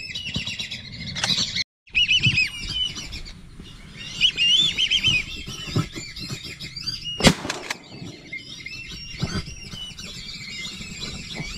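Whistling ducks (wisi wisi) calling: many high, squeaky whistles overlapping, thickest in the first half. A single sharp crack stands out about seven seconds in.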